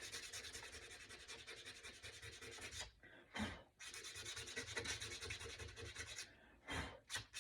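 Hand-held sandpaper rubbed over a small wooden cutout in fast back-and-forth strokes, faint, with a short break about three seconds in and brief pauses near the end.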